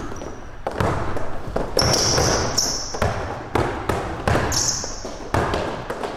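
Basketball being dribbled on a hardwood court, bouncing about twice a second, with two short high-pitched sneaker squeaks in between.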